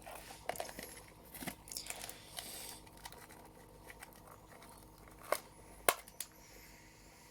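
Plastic containers and packaging being handled: crinkly rustling and light scrapes, with two sharper clicks a little over half a second apart late on.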